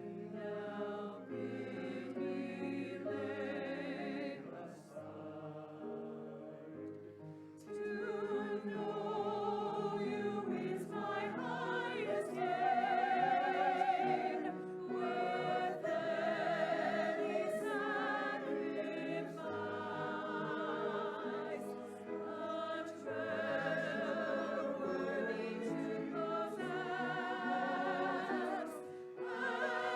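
Church choir singing with accompaniment, the voices held with a wide vibrato over sustained low notes. Softer for a few seconds, about five seconds in, then fuller.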